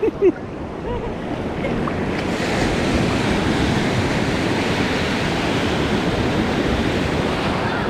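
Ocean surf breaking and washing up over a sandy beach: a steady rushing wash that swells about two seconds in as a wave breaks and its foam runs toward the shore.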